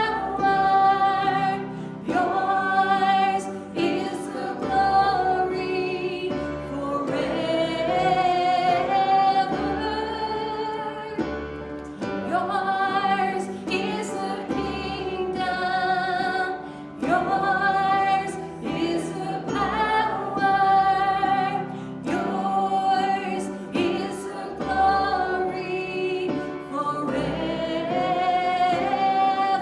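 Worship music: singing of a hymn or gospel song over instrumental accompaniment, with long held notes sung with vibrato.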